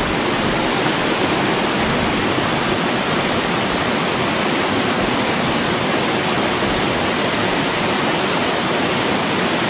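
Steady rush of a flowing trout creek, an even, unbroken hiss of water.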